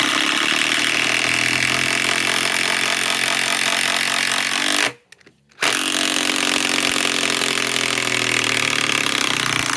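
DeWalt DCF891 mid-torque cordless impact wrench, powered by a 3.5 Ah Powerstack battery, hammering as it drives in a lag bolt. It runs in two long bursts with a short stop about five seconds in.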